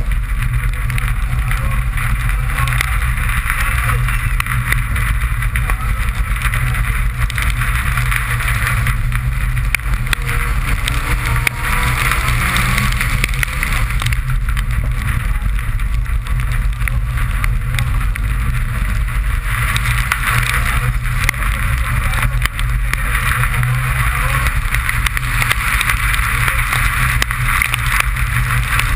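Suzuki Swift rally car's engine running hard at speed, heard from inside the cabin, together with a steady hiss of tyres and spray on a wet road.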